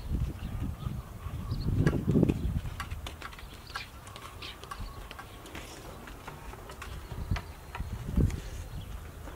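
An insect buzzing over light footsteps on packed dirt, with two dull low thumps, one about two seconds in and one near the end.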